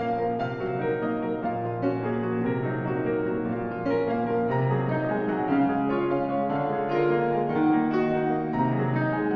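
Background piano music, many notes moving steadily.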